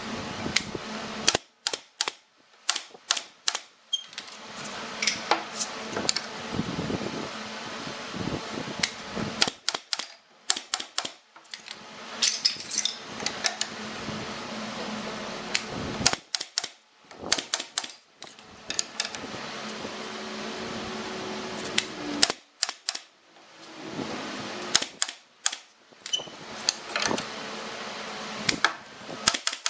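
Wooden slats clacking and knocking against each other and the frame as they are set down and tapped into line, in quick clusters of sharp clicks with short pauses between, over a steady fan-like hum.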